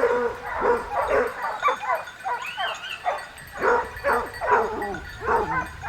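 A pack of hunting dogs baying, yelping and barking together, many overlapping calls rising and falling without a break.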